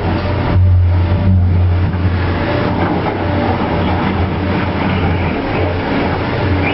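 A heavy engine running steadily: a constant low drone under a broad rumbling noise, a little louder for a couple of seconds about half a second in.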